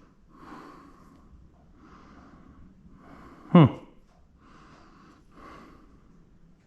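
A person's breathing close to the microphone, soft puffs repeating every second or so, with one short, loud voiced sound about three and a half seconds in that drops steeply in pitch, like a grunt.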